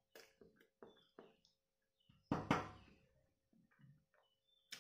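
A man chewing a mouthful of hard-boiled egg, with small wet clicks and smacks of the mouth, and one much louder thump about two seconds in.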